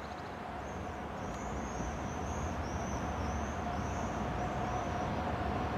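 Siemens EU44 Husarz electric locomotive approaching with a passenger train: a steady low rumble growing gradually louder, with a steady humming tone over it. A bird chirps a string of short high notes through most of it.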